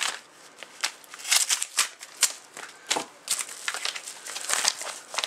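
Paper mailing envelope being slit open with a folding knife, then a plastic bag crinkling as it is pulled out and handled: a quick run of irregular crackles, rips and rustles.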